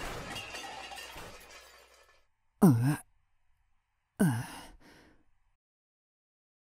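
The crash noise of a car wreck dying away over the first two seconds, followed by two short groans from a man's voice about a second and a half apart.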